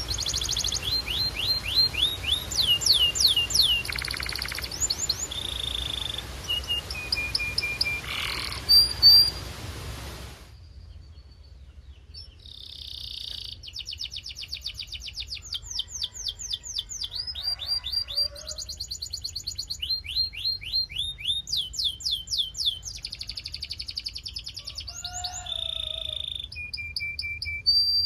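Canary singing: rapid trills of quickly repeated falling notes alternating with short held whistled tones. A background hiss under the song drops away about a third of the way in, where the recording changes.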